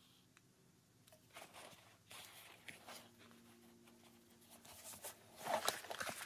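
Faint rustling and small clicks of cork fabric being handled and folded by hand, with a brief louder patch of crackly rustling near the end.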